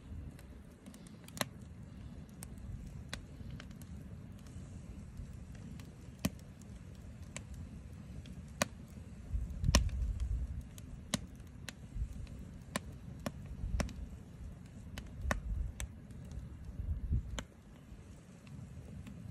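Wood fire crackling in a stove made of stacked steel wheel rims, with sharp pops at irregular intervals, roughly one a second. A low rumble swells and fades several times and is loudest about ten seconds in.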